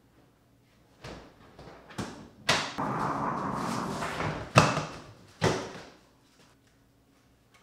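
Rummaging through a plastic storage bin: things shifting and rustling inside it, with several sharp knocks and clunks. The loudest knock comes a little past halfway.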